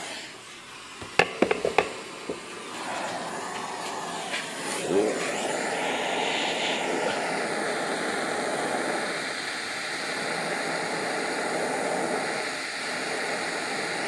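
A few clicks and knocks of metal being handled, then a gas torch flame hissing steadily as it heats the metal shaft of a typewriter carriage release arm.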